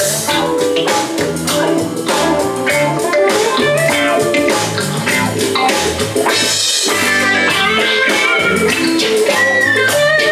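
Guitar-led music with bass and drums playing through a Bose Acoustimass home theater speaker system and its subwoofer, driven by a Sony receiver, as the system is tested.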